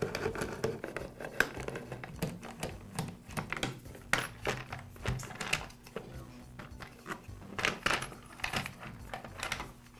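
Light, irregular clicks and knocks of a screwdriver backing out the screws of a chainsaw's plastic top cover and the cover being handled and lifted off.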